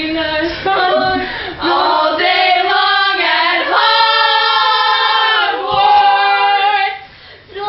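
Several voices singing a cappella in overlapping parts, with a long held note in the middle; the singing drops away shortly before the end.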